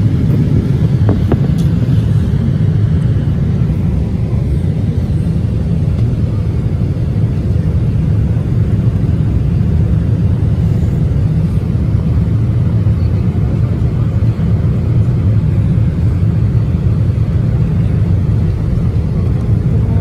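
Steady low rumble of cabin noise inside a jet airliner, its engines and the rush of air over the fuselage, heard from a window seat during the approach.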